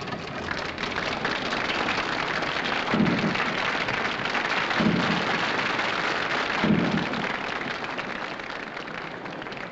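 Theatre audience applauding, swelling and then dying away, with three low thumps about two seconds apart in the middle.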